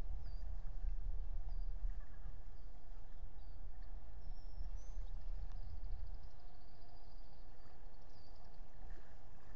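Wind rumbling low on the outdoor microphone, easing after about six seconds. Faint high chirps and a thin trill come from small birds.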